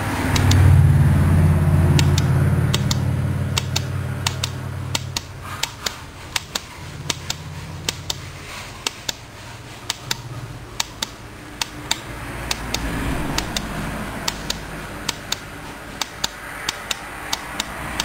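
Toggle switch on a homemade lawn-mower remote clicking sharply and irregularly, about once or twice a second, as it is pushed to step through the LCD backlight brightness settings. A loud low hum in the first few seconds fades away as the clicking starts.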